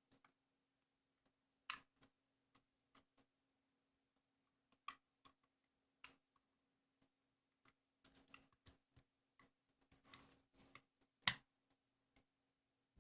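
Faint, scattered clicks and taps of small plastic camera parts being handled and fitted back together, with a sharper click about eleven seconds in, over a faint steady hum.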